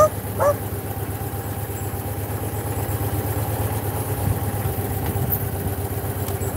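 Motorcycle engine running steadily under way, an even low hum. Two short rising calls in the first half second.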